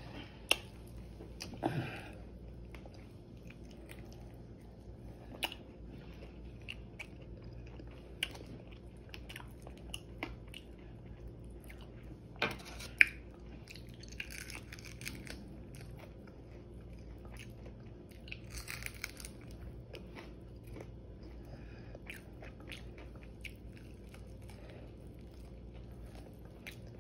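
Close-up chewing and biting on crispy air-fried chicken wing tips, with sharp crunches every few seconds, the loudest about twelve seconds in.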